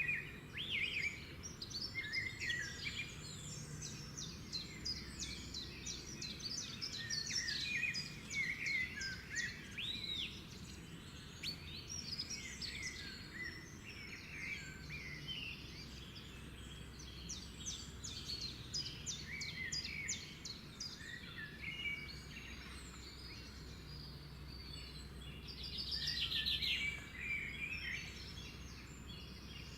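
A chorus of several birds chirping, whistling and trilling, many calls overlapping without a break. A faint steady low hum runs underneath.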